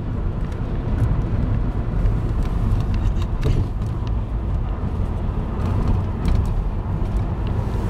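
Road noise heard inside a moving car: a steady low rumble of engine and tyres.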